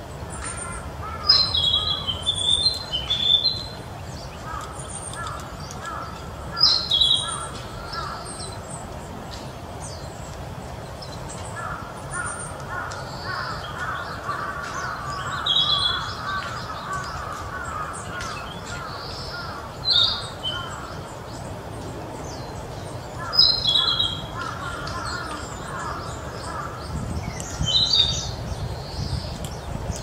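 Young male narcissus flycatcher singing: short, clear, high phrases repeated every few seconds. Behind it, another bird gives long runs of lower, rapid repeated notes over a low steady rumble.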